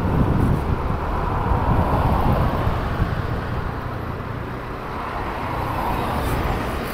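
Steady road and traffic noise from moving along a city street, with a low rumble and cars driving ahead.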